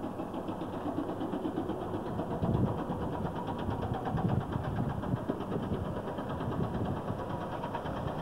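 An engine running steadily, with a fast, even knock.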